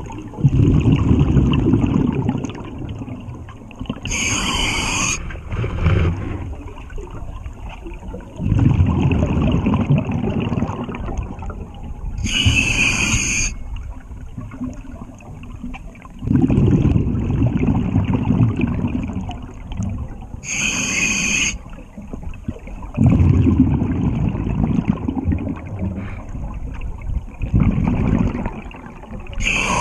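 Scuba diver breathing through a regulator: a short hissing inhalation about every eight seconds, four in all, each followed a few seconds later by a longer low rumble of exhaled bubbles.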